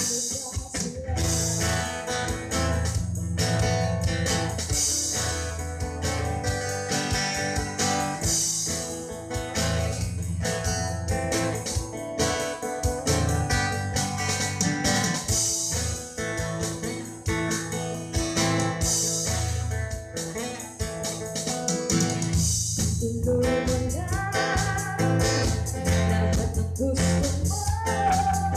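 Live band music: acoustic guitar and keyboard over steady low bass notes, with a woman singing near the start and again from about two-thirds of the way through.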